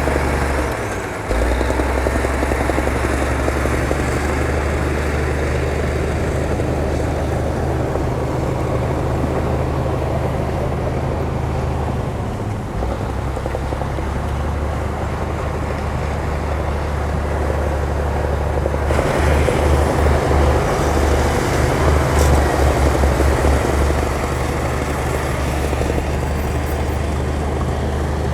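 Heavy diesel engine of earthmoving machinery running steadily with a deep rumble. It dips briefly about a second in, then grows louder and rougher, with a rapid pulsing in the low end, for about five seconds in the latter half before settling back.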